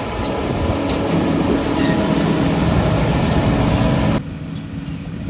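Tractor pulling a grain cart: the engine runs steadily under a rough, low rumble. About four seconds in it cuts off suddenly to quieter wind noise on the microphone.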